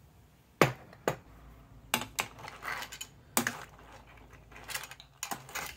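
Metal ladle knocking and clinking against the stainless steel pot and the clam shells as the soup is stirred. There are a few sharp knocks spaced irregularly, then lighter clicking near the end.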